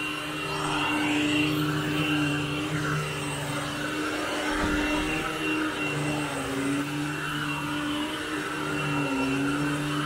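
Commercial upright vacuum cleaner running steadily as it is pushed back and forth over carpet during a pre-vacuum, lifting dry soil. Its motor pitch dips slightly a few times, and there is a brief low thump about halfway through.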